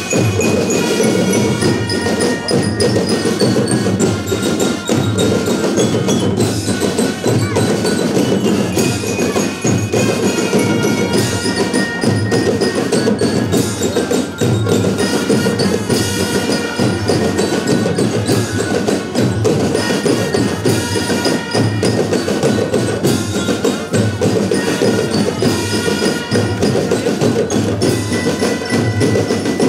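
Marching band playing: marching glockenspiels ring out a bright melody with brass, over snare and bass drums keeping a steady beat.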